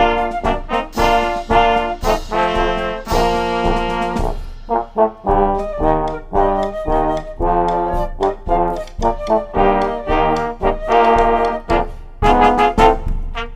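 Small wind ensemble of trumpet, flugelhorn, trombone and flute playing a military march, over crash cymbals, snare drum and bass drum keeping the march beat. The cymbals drop out for about a second around four seconds in.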